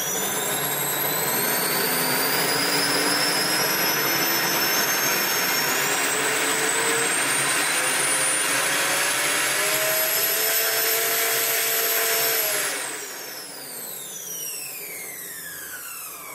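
Twin-motor electric supercharger, a centrifugal compressor belt-driven by two electric motors, spooling up with a rising whine over a rush of air, then held near top speed. About 13 seconds in it is shut off, and several whines fall steadily as it spins down.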